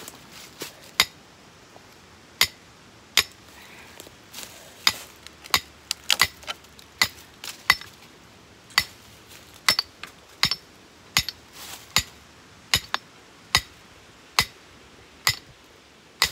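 Hammer blows driving a dog-proof raccoon trap's stake into the ground: about two dozen sharp, ringing metal strikes at an uneven pace of roughly one to two a second, with a short pause near the start.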